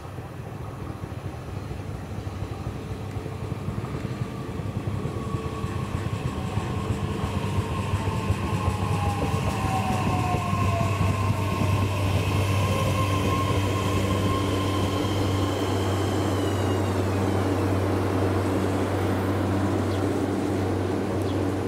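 Electric train approaching and slowing down, growing steadily louder over the first ten seconds or so and then holding level. Its motor whine falls in pitch as it decelerates.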